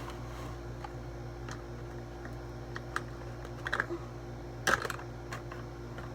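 Scattered light clicks and taps from kitchen utensils and containers being handled while flour is added to a slime mixture, with a small cluster of louder taps just under five seconds in, over a steady low hum.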